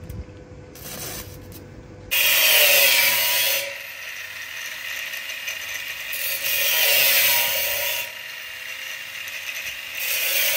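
Angle grinder with a cutting disc slicing through a rectangular steel tube. It makes three loud spells of cutting, each about one and a half seconds long, with the grinder spinning more quietly between them.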